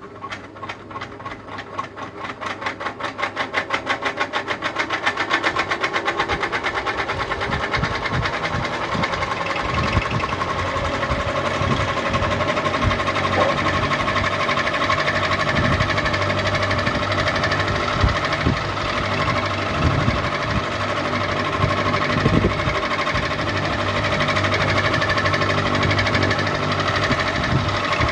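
Ceiling fan starting up: a rhythmic beat that quickens and grows louder over the first several seconds as the blades come up to speed, then runs steadily with a motor hum.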